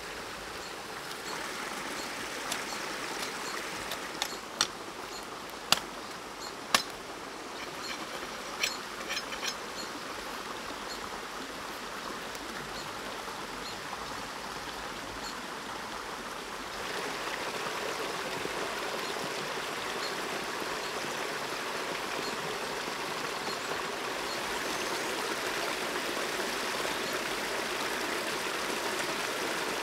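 A forest stream running steadily, its rush growing fuller and louder about halfway through. In the first ten seconds, a handful of sharp cracks of dry wood are heard as branches are snapped.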